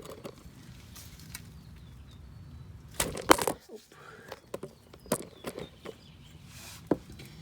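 A 14 mm socket wrench being worked on a car's oil drain plug: scattered metal clicks and knocks, with a loud cluster of them about three seconds in.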